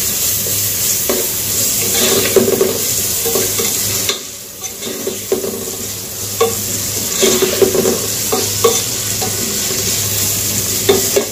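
Vegetables and shrimp sizzling in hot oil in a nonstick pot, stirred with a spatula that scrapes across the pan base in repeated strokes. The sizzle dips briefly about four seconds in, then picks up again.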